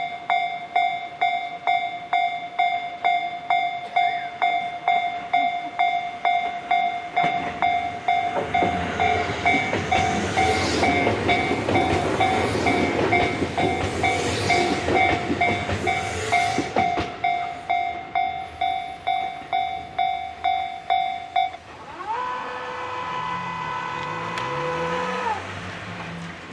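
A Japanese level-crossing warning bell rings in steady electronic strikes, about one and a half a second, while a Tobu Railway electric train passes over the crossing with its wheels clattering over the rail joints. The bell stops about 21 seconds in, and then a steady pitched tone sounds for about three seconds.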